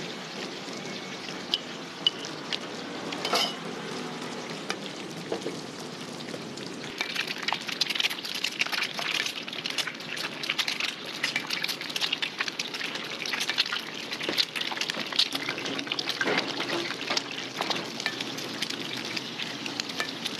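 Eggs deep-frying in a wok of hot oil: a steady sizzle with dense crackling and spitting, which grows busier and louder about a third of the way in.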